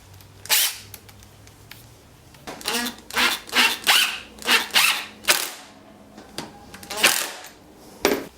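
Screws being driven into small Baltic birch parts: a run of short, sharp bursts, about a dozen, bunched together in the middle with one or two more near the end.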